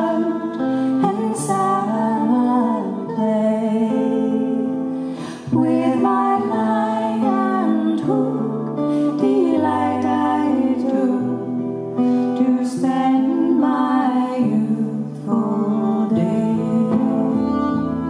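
A woman singing a slow folk song, accompanied by electric keyboard, bowed fiddle and acoustic guitar. The notes are long and held, over low keyboard bass notes that change every second or two.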